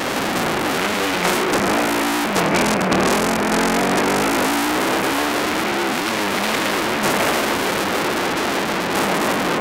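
Engine of an off-road vehicle revving up and down under load on a dirt track. A steady rushing noise runs over it.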